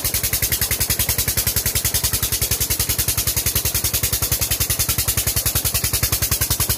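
Tube-well pump's 'Peter' diesel engine running steadily under load, its exhaust beating in an even, rapid thud of about a dozen beats a second. Under it is the rush of water pouring from the outlet pipe.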